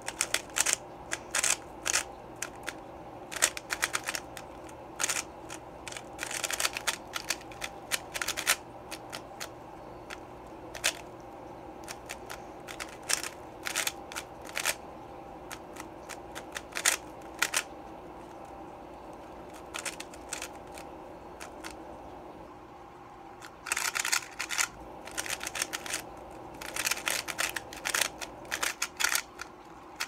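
Plastic 3x3 speed cube being turned fast by hand: rapid clicking of the layers in quick flurries, with a few quieter seconds past the middle.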